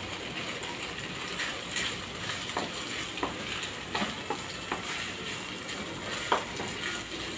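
Shredded chicken in sauce sizzling in a non-stick frying pan while a wooden spoon stirs it, with scattered light taps and scrapes of the spoon against the pan, the sharpest about six seconds in.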